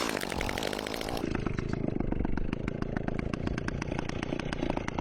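Two-stroke chainsaw engine idling with a rapid, even, pattering beat. Its pitch drops briefly right at the start as it settles to idle.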